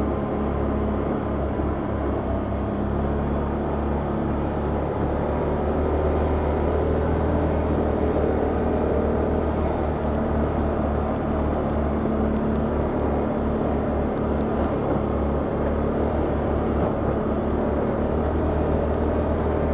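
Can-Am Outlander ATV engine running steadily in low gear while riding a trail, with no sharp changes in engine speed.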